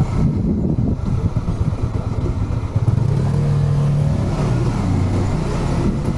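Motorcycle engine running as the bike is ridden slowly, a steady low rumble that holds a firmer note from about three seconds in.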